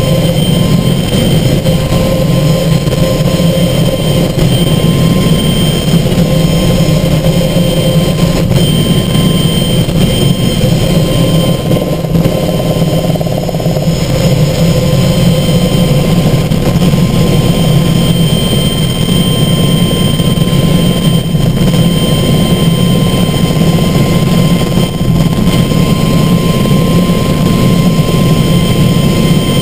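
Light helicopter in cruising flight, heard from inside the cockpit: a loud, steady drone of engine and rotor with a thin, steady whine above it.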